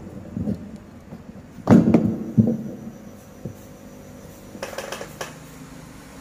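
Handling knocks and rubbing from a handheld dynamic microphone's plastic body and grille being turned in the hands and then set down on the work mat, its capsule hanging out on its wires. There is a loud cluster of knocks about two seconds in and a shorter one near five seconds.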